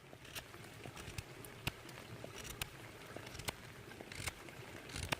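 Knife whittling green wood into tent pegs: faint scattered sharp clicks, about one a second, and a few short scrapes.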